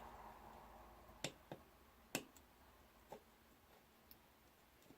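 Five or six faint, sharp little clicks and taps, scattered irregularly, from fingers and tool working a thin ribbon cable into a tiny flip-up connector latch on a DJI Phantom 3 Pro camera gimbal; otherwise near silence.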